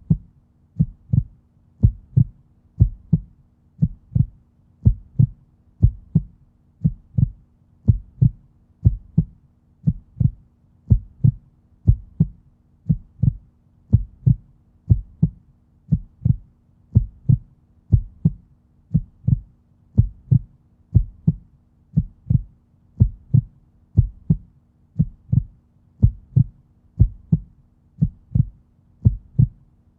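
Human heartbeat, a steady, even rhythm of low thumps at about one beat a second, over a faint steady hum.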